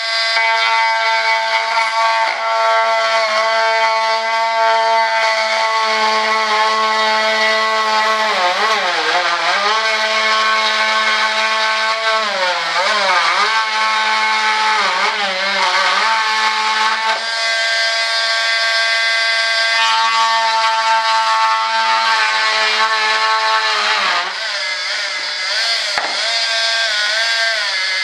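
Small handheld electric cutting tool running at speed while cutting through a fiberglass sheet. Its high motor whine drops in pitch and recovers several times as the blade bogs in the cut, with one sharp tick near the end.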